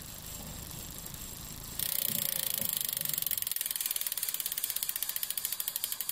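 Low steady background hum, then about two seconds in a fast, very even ratchet clicking starts and keeps going.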